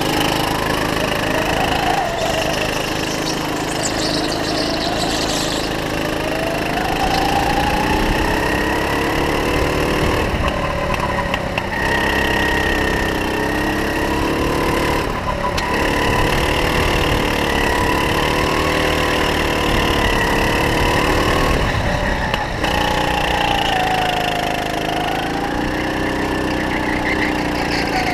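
Kart engine at speed, heard from on board, its pitch climbing on the straights and dropping sharply several times as the throttle is lifted for corners.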